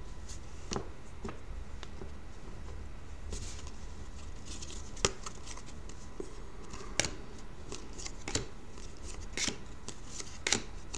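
Hockey trading cards being handled and flipped through by hand: soft rustling and sliding of card against card, with about six sharp card clicks spread through.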